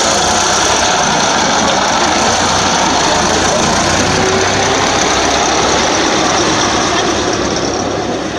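Engine of a 1916 veteran fire engine running steadily at low speed as it drives past close by, fading slightly near the end as it moves away.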